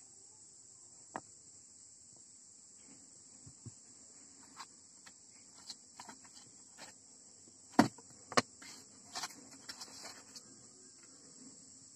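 Light scattered taps and clicks from soldering wires onto a small circuit board with a soldering iron, with two sharper knocks a little after the middle, over a steady high-pitched trill.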